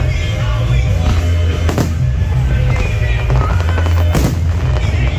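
Aerial fireworks shells bursting over a deep, continuous rumble, with two sharp bangs about two and a half seconds apart. Music plays underneath.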